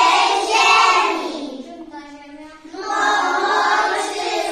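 A group of young children singing together in chorus: two held phrases with a short break about two seconds in.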